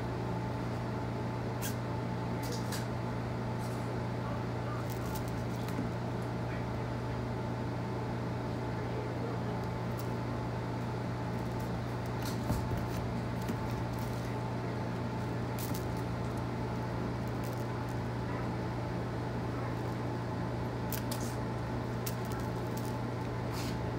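A steady low hum fills the room, with scattered light taps and clicks from a cat pouncing and batting at a wand toy on a hardwood floor.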